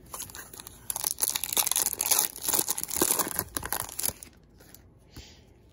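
Foil wrapper of a 2016 Topps Holiday baseball card pack being torn open and crinkled by hand. The crackling starts about a second in and lasts about three seconds, then gives way to faint handling of the cards.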